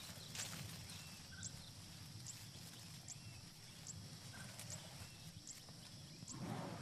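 Faint jungle ambience: a thin, high chirp repeats about every 0.8 s over a steady low hum, with a few softer chirps lower down. A brief rustle comes near the end.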